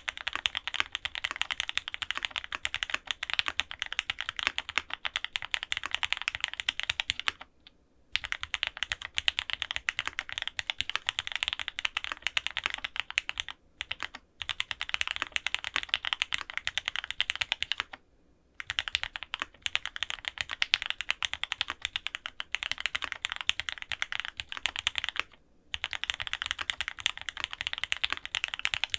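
Fast, continuous typing on an F1-8X custom mechanical keyboard with lubed Gateron Oil King linear switches, an FR-4 plate and GMK Shoko keycaps, giving dense keystroke clacks. The typing breaks off in brief pauses four times.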